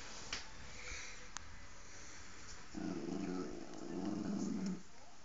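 Bichon Frise dog growling for about two seconds, starting a little past halfway. A couple of light clicks come in the first second and a half.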